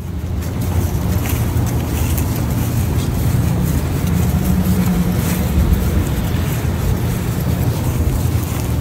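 A car driving, with a steady low rumble of engine and road noise and a few faint ticks.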